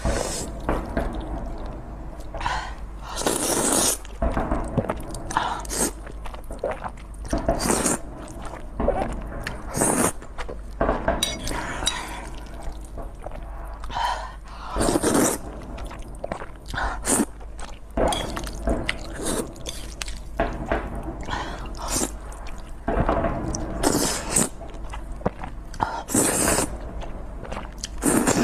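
Close-miked eating of saucy spicy instant noodles: a loud slurp every few seconds as a mouthful of noodles is sucked in, with wet chewing and small clicks in between.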